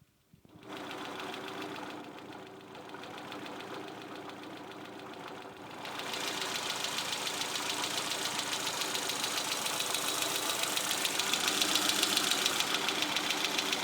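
Peugeot 306 engine running with a fast, regular ticking clatter over its running noise, which the owner places on the right side of the engine, below the rocker cover. It comes in about half a second in and gets louder about six seconds in.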